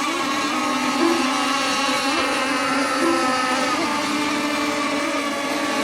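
Several radio-controlled racing boats' engines running flat out together: a steady, high buzzing whine with small rises and dips in pitch as the boats go round the course.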